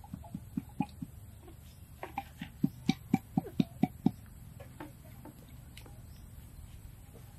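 Hollow knocks of a bamboo tube being filled with soaked sticky rice as the rice is packed down: a few light taps, then a quick run of louder knocks, about four a second, around the middle.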